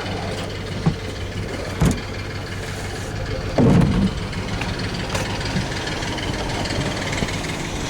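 An engine idling steadily, with a few short knocks and one louder thump about three and a half seconds in.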